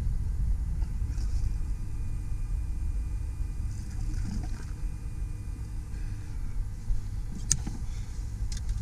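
Steady low rumble with a couple of sharp clicks near the end.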